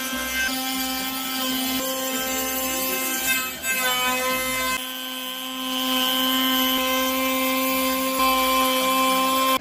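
DeWalt compact router running at speed, a steady whine, routing an edge profile into a pine board. Its pitch wavers and dips briefly a few seconds in, and the sound shifts about halfway through.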